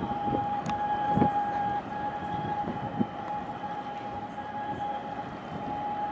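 A steady, high-pitched single-note warning tone, like an alarm siren held on one pitch, sounds continuously over background port noise. Dull clanks come about a second in and again about three seconds in.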